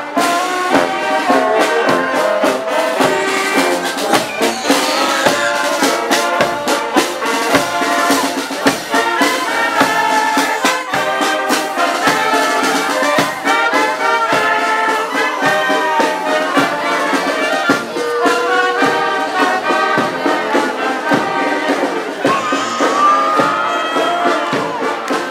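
Marching band playing, with brass melody over a steady drum beat.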